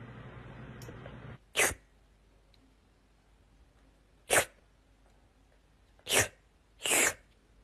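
A cat sneezing four times, each a short sharp burst, a second or two apart. Before the first sneeze, a steady hiss cuts off abruptly.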